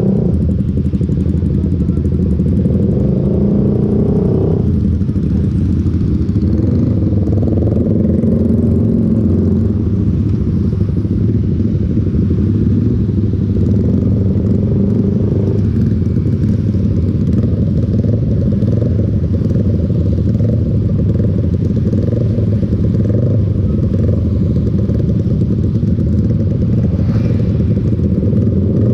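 Motorcycle on the move: the engine runs steadily under a dense low rumble, its note shifting about 5 and 16 seconds in.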